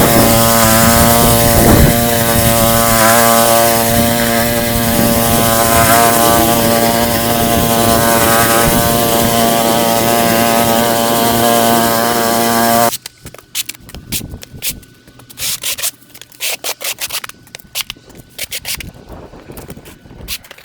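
Westermann moss brush with its petrol engine running steadily while the rotating wire brush scrubs moss off the car park surface. About thirteen seconds in, the engine sound cuts off suddenly, and only scattered short scrapes and knocks follow.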